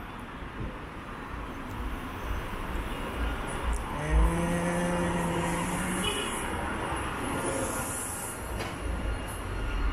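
City street tram approaching along its street-running track through steady traffic noise. A single steady horn note sounds for about two seconds, about four seconds in.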